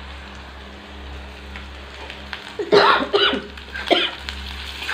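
Onions, green chillies and freshly added ginger sizzling in hot mustard oil in a wok while a spatula stirs them. About halfway through, a person coughs three times.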